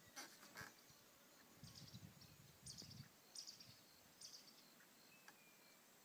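Near silence: faint outdoor ambience with a few short, high chirps about a second apart.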